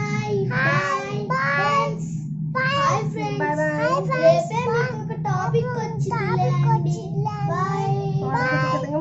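A child singing in short phrases in a high voice over a steady low hum.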